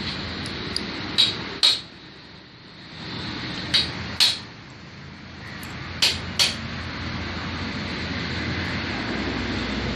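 Steel gearbox gears and shaft of a Yamaha Gladiator motorcycle engine clinking against each other as they are fitted by hand into the open crankcase, in three pairs of sharp clinks, over a steady background hum.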